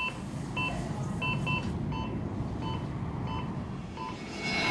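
Operating-room patient monitor beeping with the heartbeat: short two-tone electronic beeps a little more than once a second, over a low steady noise that grows louder near the end.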